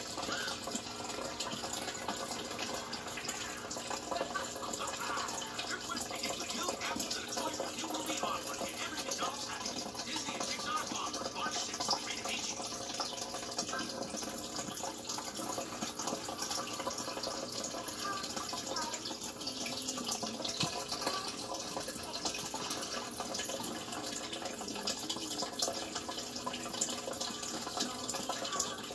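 Water pouring into a turtle tank from its filter outlet, a steady splashing trickle.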